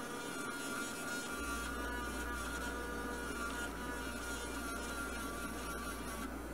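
Small handheld electric rotary engraving tool running with a steady high whine as its bit engraves a design into a steel axe head. A low hum joins about a second and a half in.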